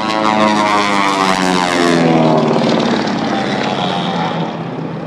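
Propeller airplane's engine flying past, loud, its drone falling steadily in pitch as it goes by.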